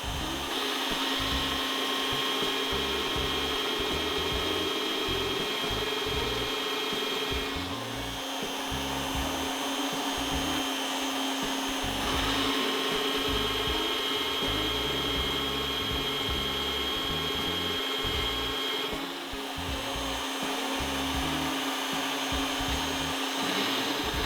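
Bosch PBD 40 bench drill press running at about 590 RPM, its motor whining steadily as the bit bores into a clamped block of wood. The sound briefly changes about 8 and 19 seconds in.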